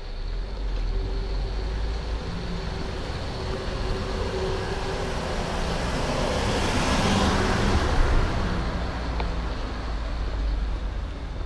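A motor vehicle passing along a city street: engine hum and tyre noise swell to a peak about seven seconds in, then die away.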